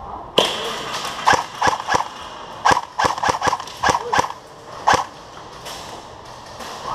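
Airsoft guns firing single shots indoors: about a dozen sharp cracks at uneven intervals, bunched in the first five seconds.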